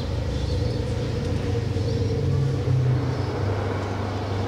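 Asian elephants' low rumble, continuous, its pitch shifting in steps a few times.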